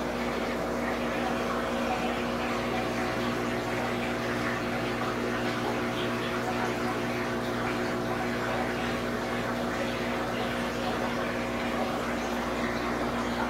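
Large aquarium's filter pump humming steadily with water splashing and trickling in the tank.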